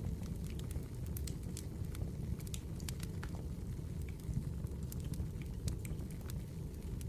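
Wood fire burning, with a steady low rumble and irregular sharp crackles and pops of the burning logs.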